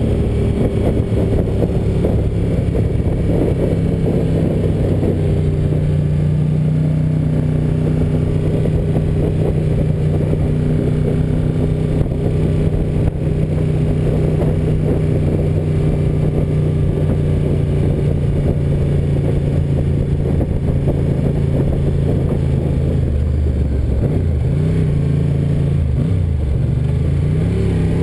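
Ducati 900FE's air-cooled V-twin engine running at steady cruising revs while riding. In the last few seconds the revs dip and rise again with throttle changes.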